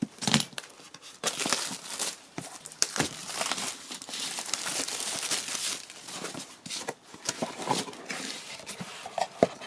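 Plastic packaging crinkling and tearing as a cardboard product box is unwrapped and opened, with a dense rustle for several seconds and scattered sharp clicks and knocks of the box being handled.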